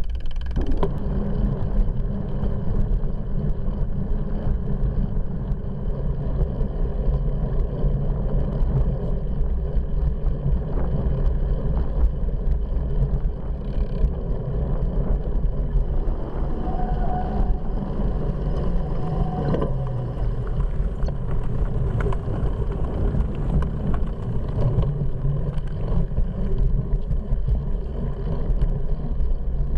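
Steady wind buffeting and tyre-on-pavement rumble picked up by a bicycle-mounted front camera while riding, with many small clicks and rattles over the top.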